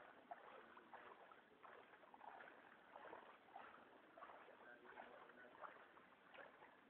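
Faint splashing and sloshing of floodwater stirred by movement through it, in small irregular strokes, with faint voices in the background.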